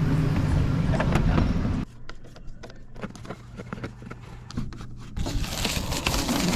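A low rumble for about the first two seconds, then scattered clicks and scrapes of a hand screwdriver driving screws into the flange of a MaxxFan roof vent fan on the metal van roof. A louder hiss comes in about five seconds in.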